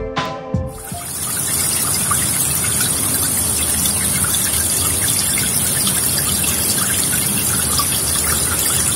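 Spring water running out of a stone outlet and splashing into a shallow stone channel: a steady rushing trickle that replaces background music about a second in.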